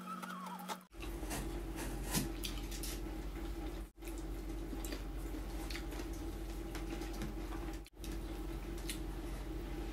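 Close-mic eating sounds of someone eating roast chicken and rice by hand: chewing, small wet clicks and smacks, and fingers handling the food, over a steady low hum. The sound cuts out briefly three times.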